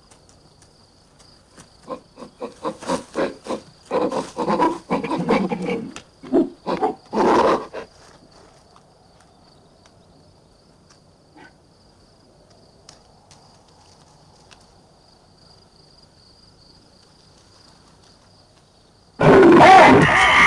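Apes grunting and hooting in a string of short calls over the first eight seconds, then a long lull with only a faint high steady tone. Near the end comes a sudden loud outburst of apes screaming and a big cat roaring as a leopard attacks.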